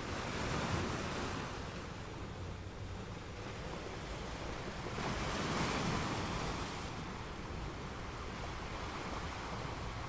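Rushing, sea-like water noise that swells twice, about five seconds apart.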